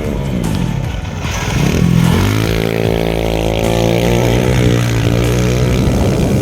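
Dirt bike engine running under throttle: the pitch drops early, climbs as it revs up about two seconds in, then holds steady at speed.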